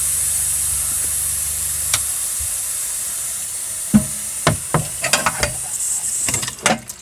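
Freshwater pressure pump humming, then stopping about two seconds in, while water hisses and sprays out of a leaking hose fitting that is not on tight enough; the hiss fades near the end. Several sharp knocks and clicks follow as the fitting and hose are handled.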